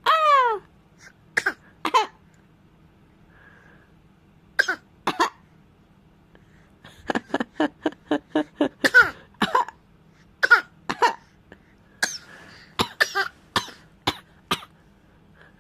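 Deliberate, playful coughs and throat-clearing: short single and paired coughs, some with a voiced edge, and a quick run of about a dozen coughs, roughly four a second, between seven and ten seconds in.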